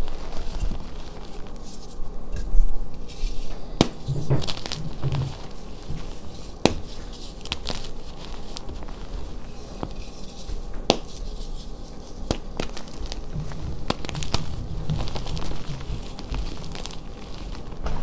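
Hands crushing and squeezing blocks of reformed dyed gym chalk into powder: a steady crumbly crunching and crackling, with occasional sharp snaps as pieces break.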